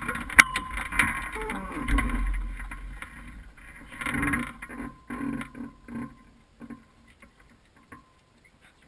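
Clicks, knocks and rustling from the hang glider's frame and the pilot's harness as the pilot shifts and gets up onto his knees beneath the control bar, dying away after about six seconds.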